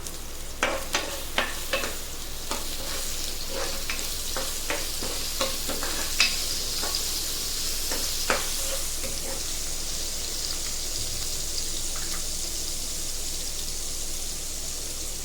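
Chopped mild green chillies sizzling in hot oil in a pan, with a steady frying hiss. A spoon clicks and scrapes against the pan as they are stirred, often in the first half and rarely after that.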